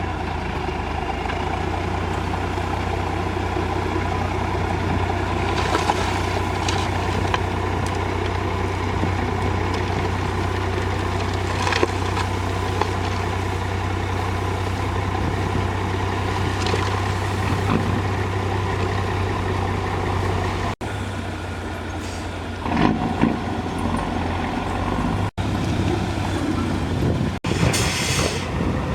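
Heavy diesel engines of a backhoe loader and dump trucks running steadily with a deep low hum, broken by a few short hisses. The sound shifts abruptly several times in the last third.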